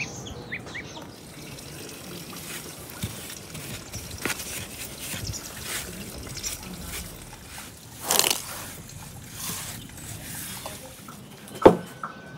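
Water trickling and splashing, with scattered small clicks, a brief louder rush about eight seconds in and a sharp knock near the end.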